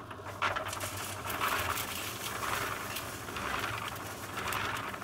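Ozito electric cement mixer running with a steady low hum while dry concrete mix is poured from a bag into its drum onto water. The tumbling mix makes a gritty swish that swells about once a second, with small clicks and rattles.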